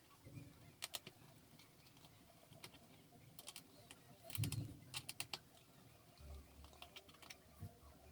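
Scattered small clicks and taps of tools and a plastic laptop case being handled while an Acer Spin 3 convertible is taken apart, with a small cluster of clicks around the middle.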